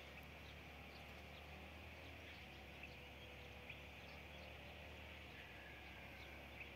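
Near silence: faint outdoor ambience with a few faint, short bird chirps scattered through it.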